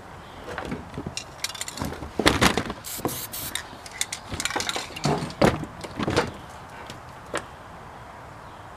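A string of irregular clicks, knocks and brief rustles for about six seconds, one more click a second later, and then only the steady outdoor background.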